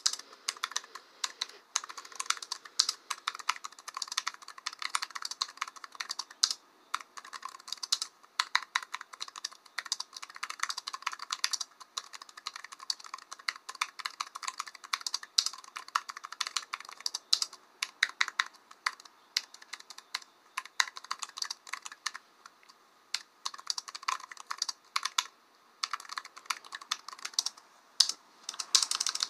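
Typing on a computer keyboard: rapid, irregular key clicks in bursts, with a few short pauses between runs.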